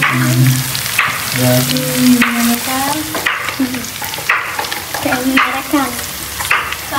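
Onions, chillies and peas sizzling in a wok while a metal spatula stirs them, scraping the pan in repeated strokes about once a second.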